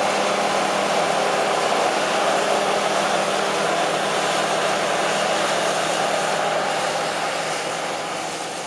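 John Deere 9770 combine running steadily while harvesting, a dense mechanical noise with a low engine hum underneath, easing off somewhat in loudness near the end.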